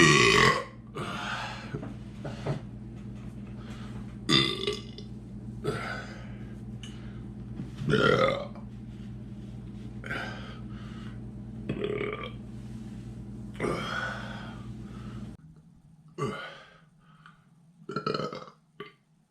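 A man belching over and over, about a dozen burps of varying length, the loudest right at the start, from a stomach full after eating a large amount of food. A steady low hum underneath cuts off suddenly about three-quarters of the way through.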